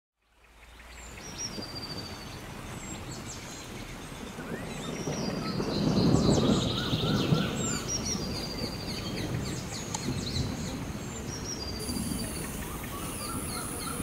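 Rainforest ambience: many birds calling with short chirps and whistles over a steady bed of forest noise, fading in at the start. A louder low rumble comes in around the middle, and a steady high whine joins near the end.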